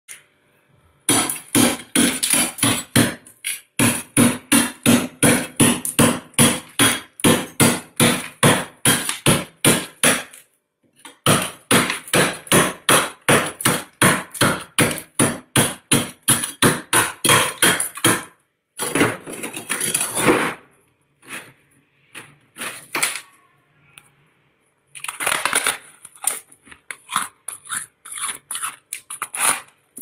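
Thick freezer frost being scraped and broken up with a tool in quick repeated crunchy strokes, about three a second. The strokes break off briefly near the ten-second mark and grow sparser and uneven in the last third.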